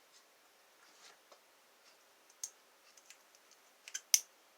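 Lock-picking tools working the pins of a pin-tumbler lock: scattered small metallic clicks and ticks, mostly faint, with a sharper, louder click about four seconds in.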